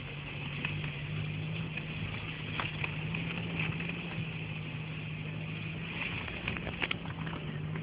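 Vehicle engine idling steadily, with scattered light clicks and knocks.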